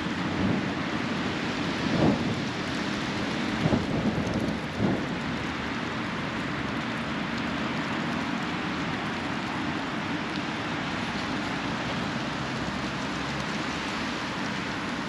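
Steady outdoor rushing noise, with a few low thumps in the first five seconds.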